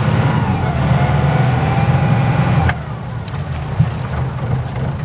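Sailing yacht's inboard diesel engine running steadily, with the electric bow thruster whining over it until the thruster cuts off suddenly a little over halfway through.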